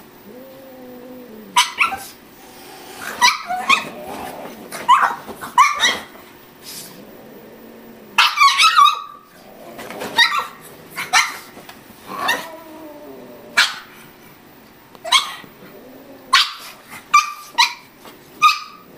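A pug barking in short, sharp yaps, about fifteen barks at irregular intervals, with a quick flurry of them a little past eight seconds in.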